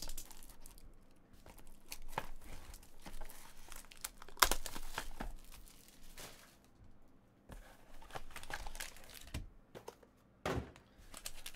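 Wrappers of trading card packs crinkling and tearing as the packs are ripped open by hand, with irregular crackles. Two louder snaps, one about four and a half seconds in and one near the end.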